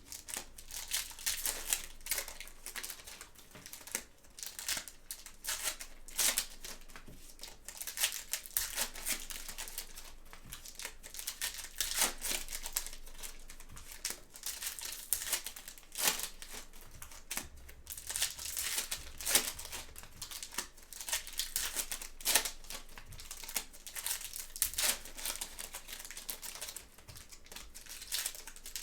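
Plastic wrapping on a box of football trading card packs being crinkled and torn open, with a steady run of irregular crackles and rustles.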